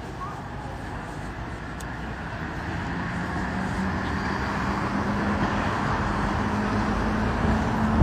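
City street traffic, with a vehicle engine hum that comes in a couple of seconds in and grows louder, rising slightly in pitch as it draws nearer.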